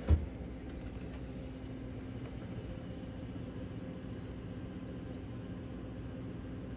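A single sharp thump, then a steady low hum with a constant tone.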